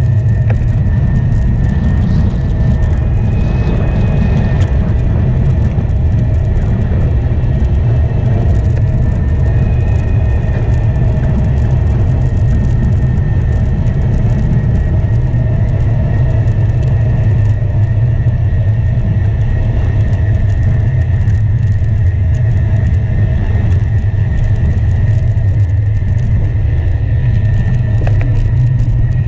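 Wind rushing over a handlebar-mounted action camera's microphone as a road bike moves at speed: a loud, steady low rumble with no let-up.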